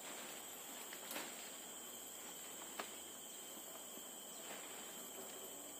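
Forest insects droning steadily on two high pitches, with two faint clicks about one and three seconds in.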